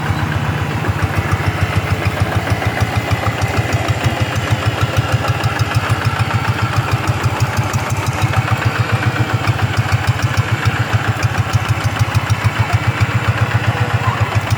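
Hand tractor's single-cylinder diesel engine running steadily, with an even, rapid chugging pulse.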